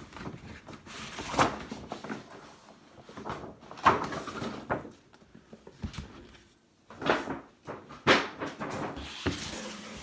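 Gift packaging being handled and opened: rustling and crinkling paper with several sharp, louder crackles and bumps.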